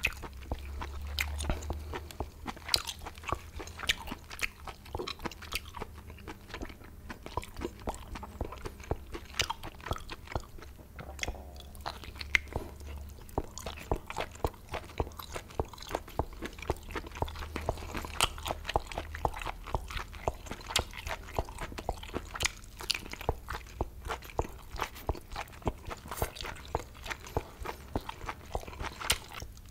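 Close-miked chewing and biting of boiled octopus tentacle: a dense, irregular run of sharp clicks and crunches.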